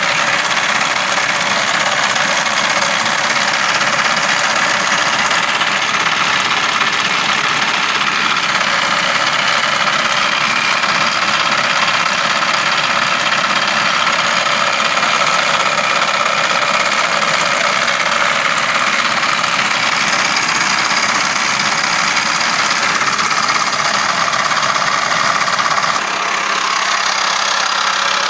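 A vehicle engine running with the air conditioning switched on, with a steady clattering noise that comes on with the air-con. About 26 seconds in, the deepest part of the sound drops away and it gets a little quieter.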